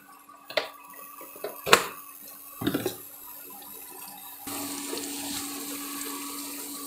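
A few sharp clinks of a utensil against the metal pressure cooker, then a steady rush of running water starts abruptly about four and a half seconds in.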